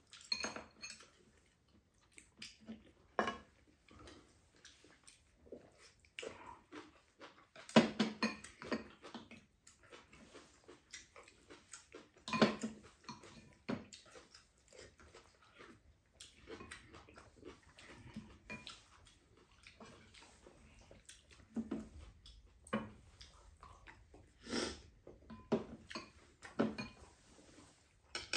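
Two people eating at a table: chewing and mouth noises, with spoons scraping and clinking against bowls and a pan, in short scattered bursts.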